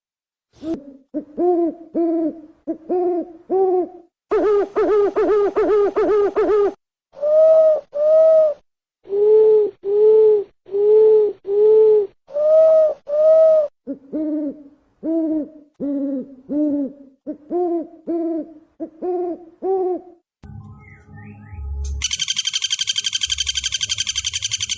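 An owl hooting: short pitched hoots, mostly in pairs about once a second, with a quick run of hoots about four seconds in. Near the end a different bird's rapid high chirping starts.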